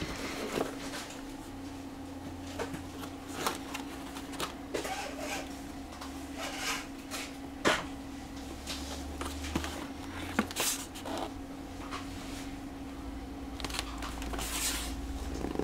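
A cardboard plastic-model kit box being handled and turned over on a cutting mat: scattered rubs, taps and light knocks of card, over a steady low hum.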